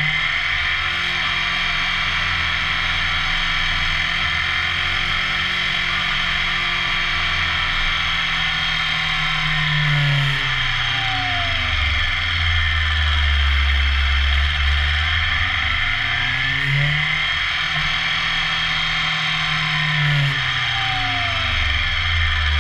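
BMW S1000R's inline-four engine, heard from an onboard camera through heavy wind rush: the revs drop away twice as the bike slows and rise again as it pulls out.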